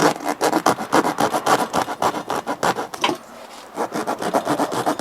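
Drywall (sheetrock) saw blade sawing into a rubber scooter tyre in quick back-and-forth strokes, several a second. It stops briefly about three seconds in, then starts again.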